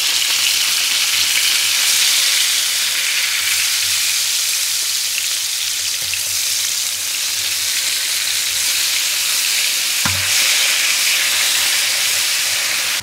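Two ribeye steaks sizzling in melting herb butter in a frying pan, a steady high hiss. A short knock about ten seconds in.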